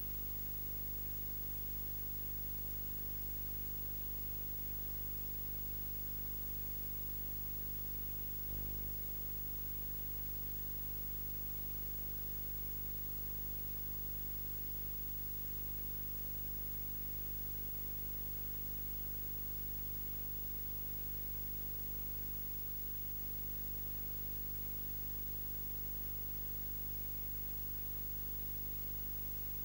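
Steady electrical hum made of many evenly spaced tones, under an even hiss: a camcorder recording with its microphone unplugged, so only the recorder's own noise is heard. A brief low bump about eight and a half seconds in.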